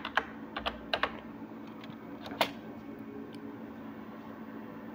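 Computer keyboard keys being typed: a handful of separate clicks in the first half, the loudest about two and a half seconds in, over a faint steady hum.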